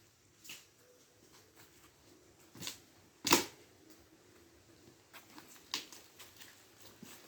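Dry firewood being handled: a few separate sharp knocks and crackles, the loudest a single knock about three seconds in.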